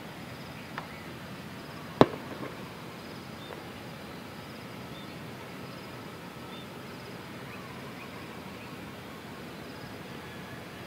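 Steady outdoor background hiss with a few faint high chirps, broken by one sharp, loud click about two seconds in, a smaller click shortly before it, and a few weaker ticks just after.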